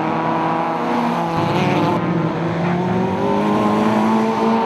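Engines of small racing hatchbacks held at high revs, a steady engine note whose pitch shifts about halfway through.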